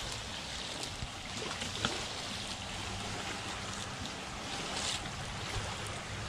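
Shallow water washing and lapping along the shoreline in a steady wash, with a few brief splashes.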